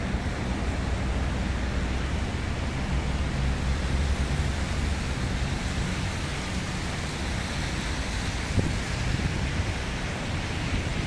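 Steady city street noise: a low traffic rumble, with a vehicle engine's drone fading out about two-thirds of the way in.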